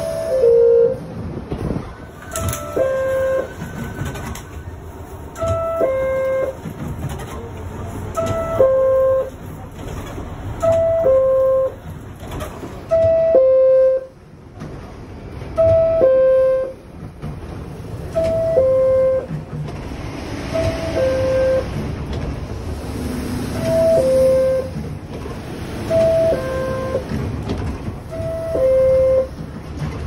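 New York City Subway R62A car door chime: a two-tone descending "ding-dong", higher note then lower, repeated about every two to two and a half seconds, about a dozen times. It is the warning that the doors are about to close, heard over the rumble of the train.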